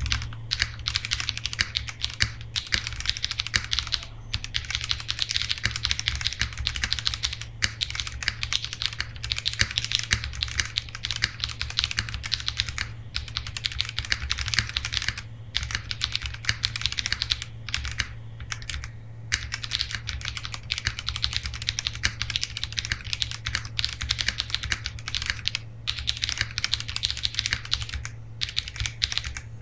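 Typing test on a CIY GAS67 gasket-mount mechanical keyboard with KTT Tofu switches and ABS double-shot Cherry-profile keycaps: a fast, continuous stream of keystrokes, broken by several brief pauses. A steady low hum runs underneath.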